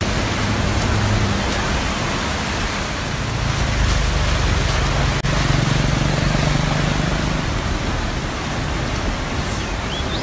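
Fast-flowing floodwater rushing in a steady, even noise, with a low rumble under it and a brief click about five seconds in.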